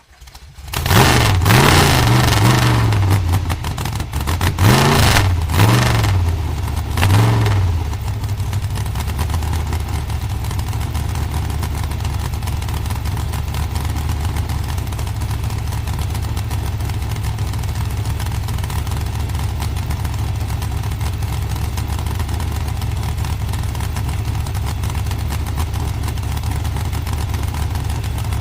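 Dragster engine firing up and revved hard several times in quick blips over the first seven seconds or so, then settling into a steady, lumpy idle.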